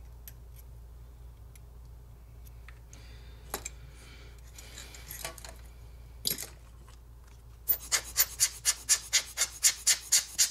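A rubber hand air blower squeezed in quick succession, about a dozen short puffs of air at roughly four a second near the end, blowing the solvent off freshly applied adhesive. Before that, light handling taps and clicks.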